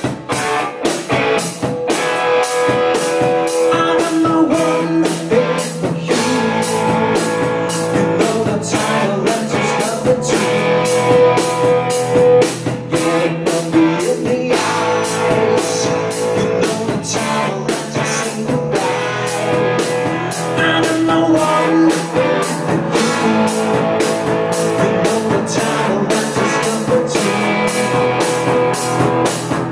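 Rock band playing live: electric guitar and bass guitar over a drum kit keeping a steady beat.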